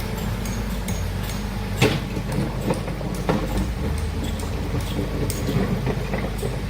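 Large diesel engine of heavy earthmoving machinery running steadily under load, with a few sharp metallic knocks, the loudest about two seconds in.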